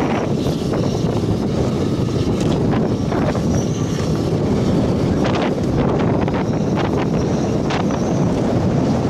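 Strong rear-flank-downdraft winds from a tornadic supercell blasting across the microphone: a loud, steady rumble with a few short, sharper hits.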